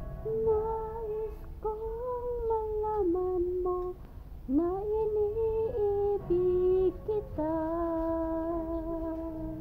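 A woman humming a slow tune without words, in long held notes joined by gliding pitch, with a short break about four seconds in.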